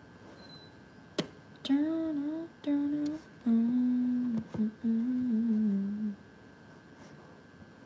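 A woman humming a short wordless tune in four brief phrases, the pitch sitting lower in the last two. A sharp click comes just before the humming starts.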